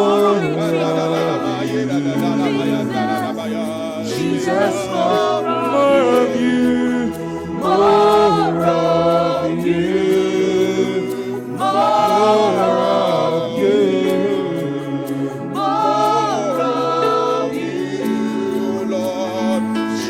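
Church worship team singing a slow gospel worship song over instrumental backing, with several voices on long held notes.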